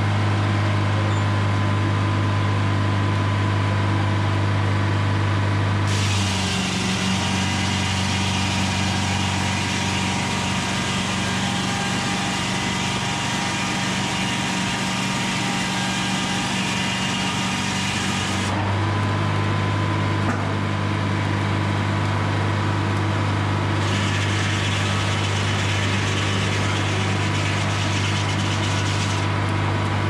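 A Detroit Diesel 4-71 supercharged two-stroke diesel running steadily, driving a Frick sawmill's large circular saw. About six seconds in, the blade rips through a squared log for about twelve seconds, filling in a dense high hiss while the engine note changes under the load. Near the end there is a shorter stretch of high hiss.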